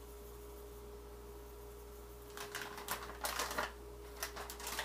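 A faint steady hum, then from about halfway through, several short bursts of quick clicky crinkling from a plastic food packet being handled.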